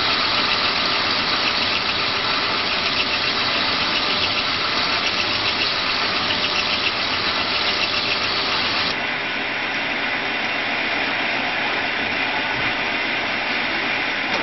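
Small lathe running while a metal paintball marker part spinning in it is hand-sanded: a steady hissing whir that eases slightly about nine seconds in.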